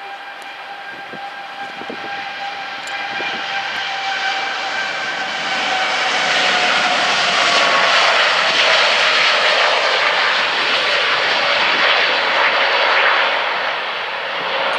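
Boeing 787 Dreamliner's twin jet engines at takeoff thrust during the takeoff roll and lift-off. The roar grows louder over the first six seconds, with a high fan whine and a steady tone that slowly falls in pitch as the aircraft passes.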